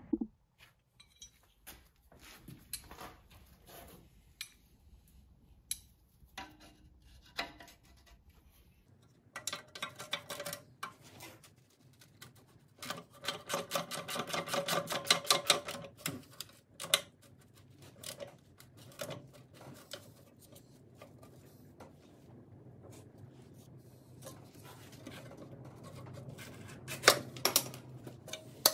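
A wrench working bolts on the rusty steel body of a small bulldozer: metal clinks and knocks, with runs of quick, even clicking, the longest near the middle and another near the end.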